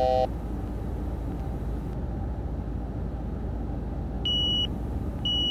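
Steady cockpit noise of a Gulfstream G200 jet on approach. A lower steady tone cuts off just after the start, and from about four seconds in a high-pitched beep sounds about once a second. This beeping is the aircraft's aural cue that the pitch trim is moving, since the plane has no trim wheel.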